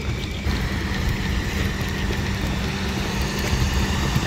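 Car engine running steadily, a constant low drone with an even level.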